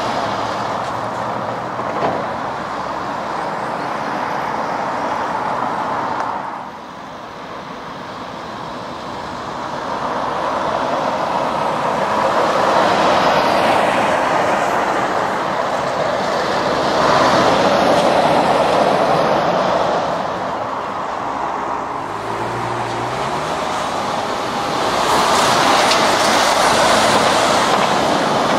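Heavy lorries and other traffic passing on a road: tyre and engine noise swells and fades as each vehicle goes by, with the loudest passes about twelve, seventeen and twenty-five seconds in.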